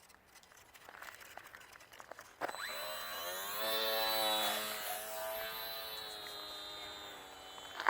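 E-flite Sport Cub S micro RC plane's small electric motor and propeller throttling up about two and a half seconds in with a rising whine, then holding a steady pitch and slowly getting quieter.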